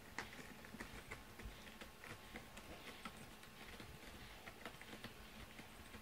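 Pet brush working through a cat's fur: faint, irregular scratchy ticks, several a second.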